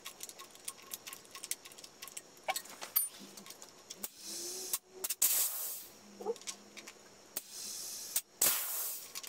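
Scattered small clicks and taps of hand and tool work on the wheel's valve stem, with a few short hissing noises.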